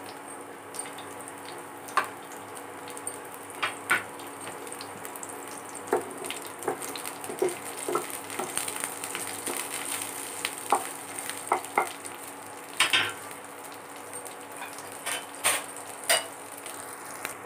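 Green chillies, cumin and asafoetida sizzling in hot oil in a non-stick frying pan, with a wooden spatula stirring and knocking against the pan now and then.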